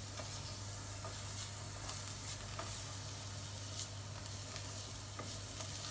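Chopped onion sizzling as it fries in a pot, being browned, while a plastic spoon stirs it, scraping and tapping the pan now and then.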